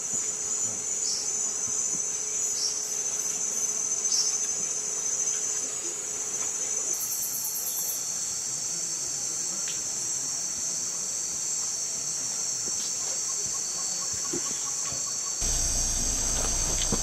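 A steady, high chorus of insects shrilling in tropical jungle, with a few short falling chirps in the first few seconds. A low rumble joins about a second and a half before the end.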